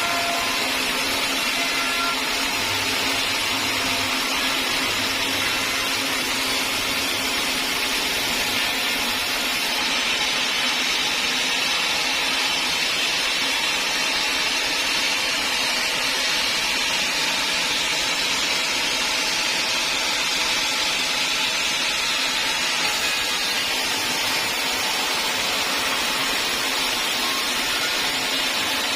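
Sawmill machinery running steadily, an even, unbroken mechanical whirring with no starts or stops.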